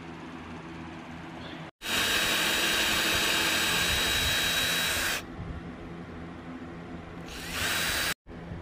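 Cordless drill with a twist bit boring into a wooden boat-seat plank through an aluminum bracket, running at a steady speed for about three seconds. After a pause it runs again briefly near the end, its pitch rising as it spins up.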